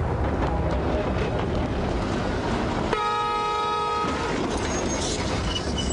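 Blackpool double-deck tram running along its street track, sounding its horn once, a single blast of about a second that starts suddenly about three seconds in.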